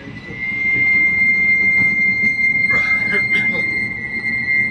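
Tram wheels squealing on the rails: one steady high-pitched squeal that sets in about half a second in and holds, over the low rumble of the tram running.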